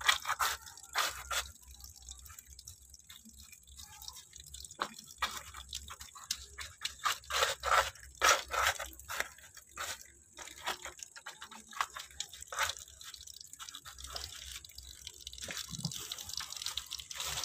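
Wet aren palm fibre (ijuk) being pressed and packed by hand into a plastic bucket as a filter layer, giving irregular crackles and drips while a thin stream of water runs onto it.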